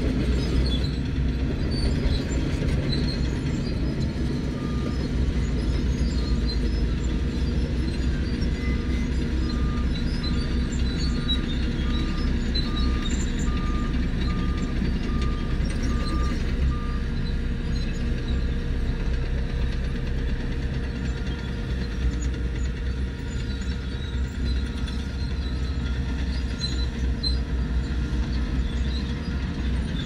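Diesel engines of heavy earthmoving machinery (crawler bulldozers, a vibratory road roller, a dump truck) running steadily under load. A reversing alarm beeps at a steady pace, about one and a half beeps a second, from about five seconds in until about seventeen seconds in.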